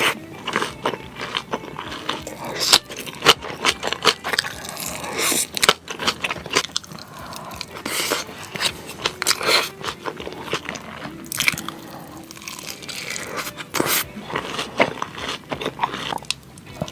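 Close-miked eating of spicy noodles: chewing and biting with a steady run of irregular crunchy, wet mouth clicks.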